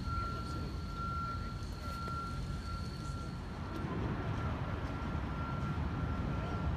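City street traffic: a steady low rumble of passing vehicles, with a thin, steady high-pitched tone that drops out briefly now and then.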